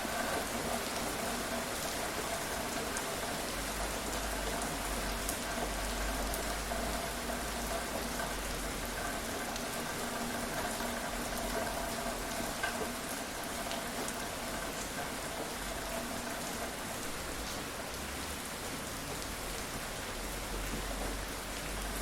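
Steady rain falling, with scattered individual drops ticking on a hard surface.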